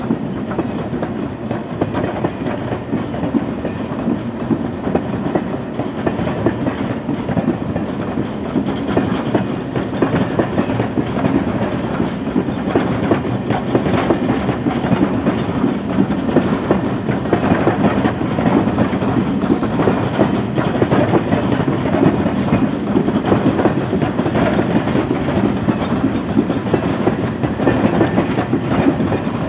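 A freight train of empty stake-sided log wagons rolling past at steady speed, with a continuous running noise of wheels on rail. It grows slightly louder toward the end.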